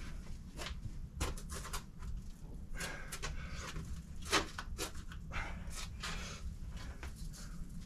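A boulderer's heavy, forceful breathing and sharp exhales while pulling through hard moves, with short scuffs and taps of shoes and hands on rock, over a steady low rumble. The loudest exhale comes a little past the middle.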